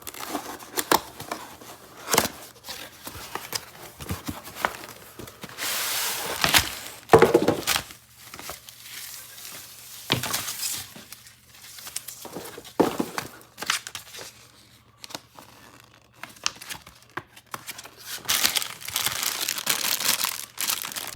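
Packaging crinkling, crumpling and tearing in irregular bursts as a magnetic mesh screen door is unpacked, with a longer stretch of tearing about six seconds in and another near the end.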